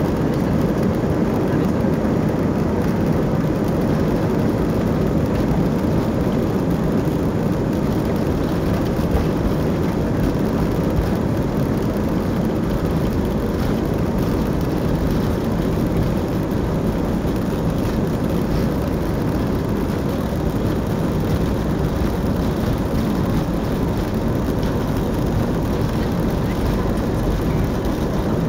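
Airbus A320-family airliner's jet engines at takeoff thrust with runway rumble, heard from inside the cabin during the takeoff roll. It is a loud, steady noise with no breaks.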